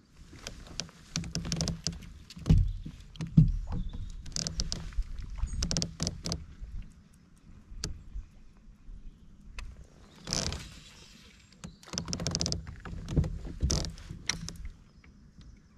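Irregular knocks, clicks and short rustling bursts of fishing gear being handled aboard a plastic fishing kayak, coming in several clusters with quieter gaps between.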